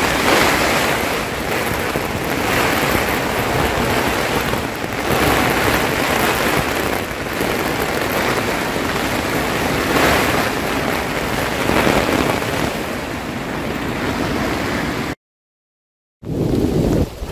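Storm wind buffeting a camping tent, the tent fabric flapping and rustling loudly in gusts that surge every couple of seconds. It cuts off abruptly about fifteen seconds in.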